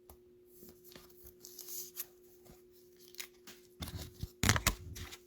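Trading cards being handled and sorted on a table: soft rustling and small taps of cards sliding against each other, growing louder about four seconds in.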